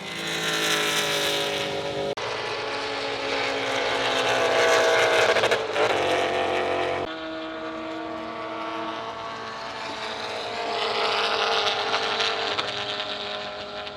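Race car V8 engine running hard on track, its pitch climbing and dropping through the revs. Abrupt cuts about two and seven seconds in split it into separate passes.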